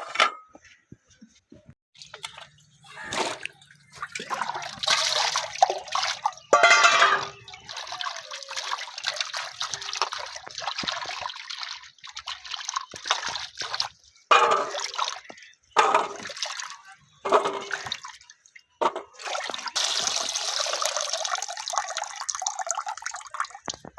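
Water splashing and pouring in bouts, with short pauses between them and a few light knocks.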